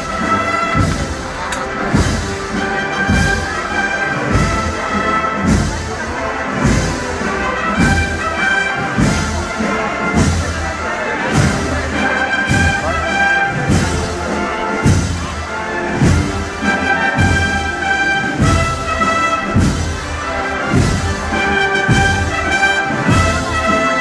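Brass band playing a slow processional march with a steady drum beat, the band music that accompanies a Holy Week paso de palio.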